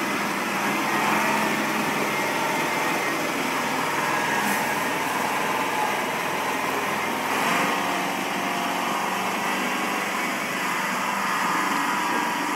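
Tatra dump truck's diesel engine running steadily under load as the truck wades through icy floodwater, with water rushing and churning around the wheels.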